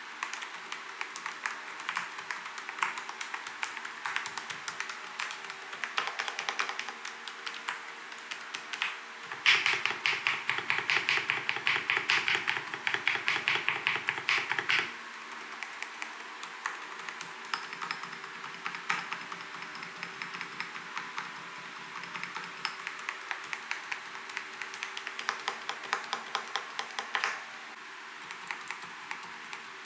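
Typing on an Mstone Groove T87A mechanical keyboard with silent Milky switches (45 g): a continuous, irregular stream of soft key clicks. For about five seconds in the middle the typing gets faster and louder.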